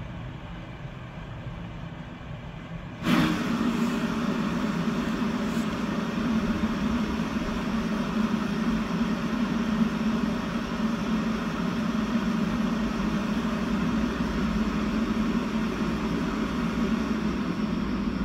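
Prima Klima Whisper Blower inline duct fan running on its top speed (530 m³/h). With its inlet held shut it runs quieter; about three seconds in the inlet is uncovered and the sound jumps abruptly to a louder, steady rush of air over a low hum.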